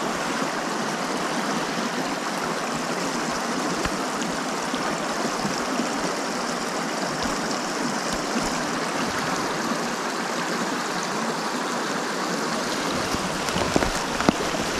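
Small rocky creek running steadily, a constant rush of water over stones. Near the end, irregular splashing as a hand goes into the water.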